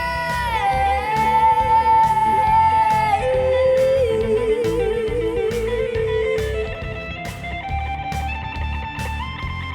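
Electric guitar solo in an instrumental break of a pop-rock song: long held notes that bend in pitch and waver, over a steady drum beat.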